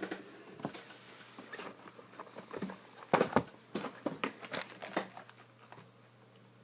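Plastic wrap on a card box crinkling and tearing, with a string of small clicks and taps from the packaging being handled.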